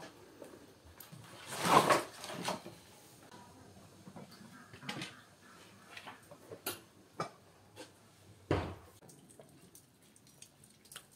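Split firewood logs set down with a short rough clatter about two seconds in, followed by scattered light knocks and clicks and one duller thump near the end.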